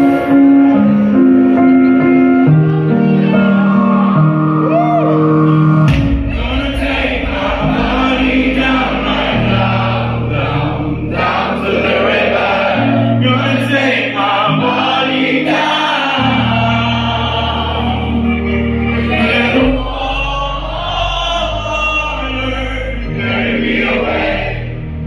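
A live pop ballad played through a concert PA. It opens on held keyboard chords, and about six seconds in the bass comes in and a male singer starts singing over the band.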